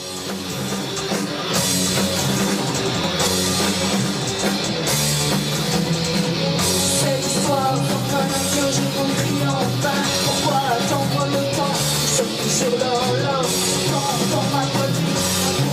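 Rock music with electric guitar and drums, fading in at the start; a singing voice comes in about seven seconds in.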